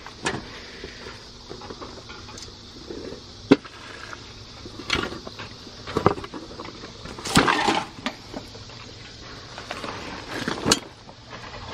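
Scattered sharp clanks and knocks of scrap being handled or stepped on, about six in all, with a longer rattling clatter a little past the middle.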